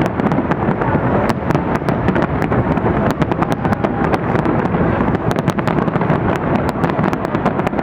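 Fireworks display at close range: a continuous low rumble of booms with rapid sharp cracks going off several times a second.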